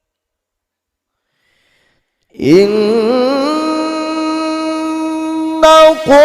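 Silence for about two seconds, then a male qari's voice enters in melodic Quran recitation (tajwid), holding a long, high note with small wavering ornaments and a short breath break near the end.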